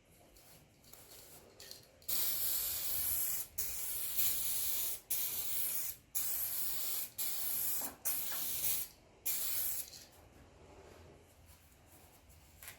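Aerosol can of 2K clear coat spraying in about seven short passes, each hiss lasting up to a second and a half with brief breaks between.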